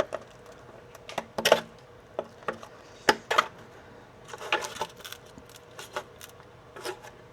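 Irregular clicks, taps and short scrapes of a hand tool picking leftover support material out of a 3D-printed plastic part.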